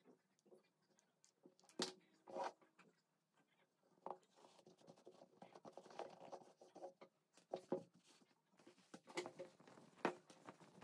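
Faint hand-handling sounds of fabric craft work: scattered soft taps and knocks, with denim being rubbed and smoothed by hand around the middle, and cotton cloth rustling near the end.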